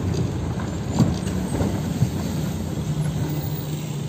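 Car driving, heard from inside the cabin: a steady low drone of engine and road noise, with two brief knocks about one and two seconds in.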